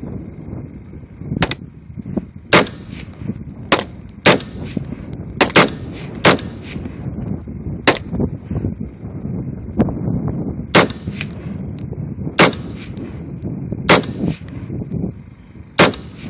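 LWRC M6, a piston-driven AR-15-style semi-automatic rifle, fired as single shots: about a dozen sharp cracks at an uneven pace, one every second or so, with a pause of about three seconds near the middle.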